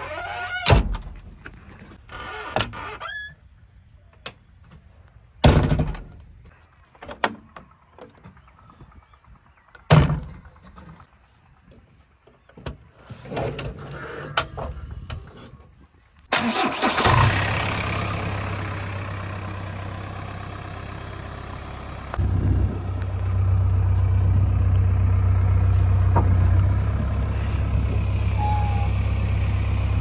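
Scattered knocks and thumps as someone climbs into a JCB 3DX backhoe loader's cab. About halfway through, its diesel engine starts and settles into a steady idle, running louder from about two-thirds of the way in.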